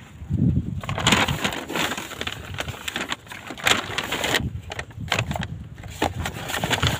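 Handling noise from parts and tools being moved about: an irregular run of clicks, knocks and rustling.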